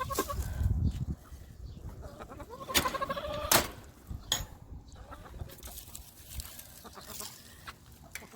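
Backyard hens calling: a short call at the start and a longer call about three seconds in, with a few sharp knocks around them.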